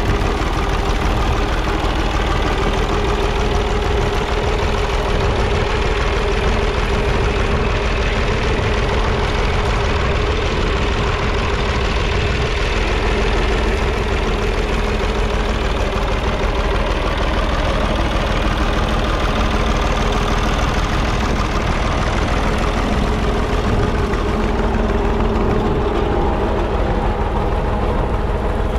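1943 Fordson Model N tractor's 4.0-litre four-cylinder diesel engine running steadily.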